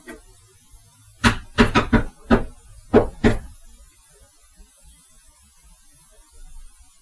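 Six knocks rapped out in an uneven rhythm over about two seconds: a secret knock pattern being entered for a piezo-sensor knock detector to record.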